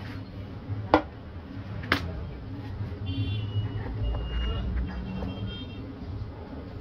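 Two sharp clicks about a second apart, over a steady low background rumble.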